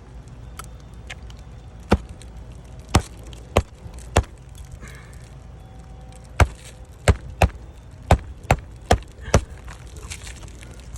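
Hammer blows on a shingled roof: about eleven sharp, separate knocks, irregularly spaced, with a quick run of strikes in the second half.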